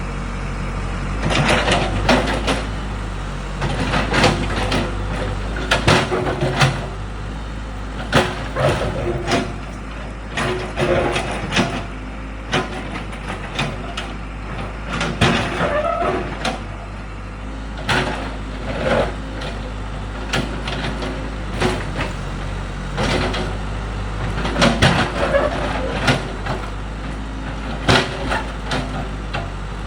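Case 580 backhoe loader's diesel engine running steadily while its bucket breaks up and scrapes a concrete floor, with repeated irregular clanks and knocks of steel on concrete.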